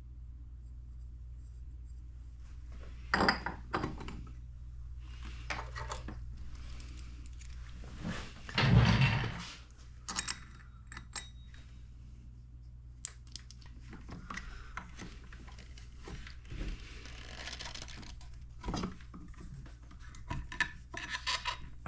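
Small metal engine parts and hand tools clinking and knocking as they are handled, with one heavier thump about nine seconds in, over a steady low hum.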